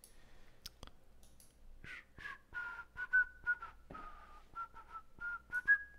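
A person whistling a short tune of wavering notes, starting about two seconds in and ending on a higher note, with a few sharp clicks before it.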